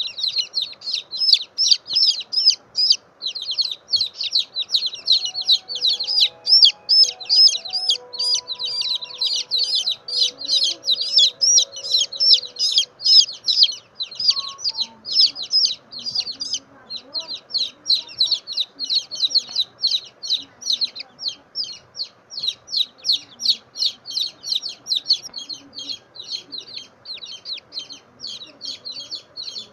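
Baby chick peeping loudly and without let-up, high short peeps about three or four a second, with a brief pause about two-thirds of the way through.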